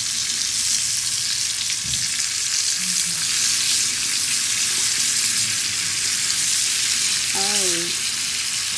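Bacon-wrapped asparagus sizzling in a frying pan, a steady high hiss.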